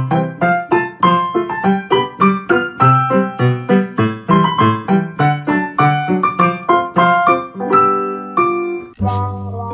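Background piano music: a bouncy tune of evenly spaced notes, about three to four a second. Near the end it switches to a different piece with longer held notes.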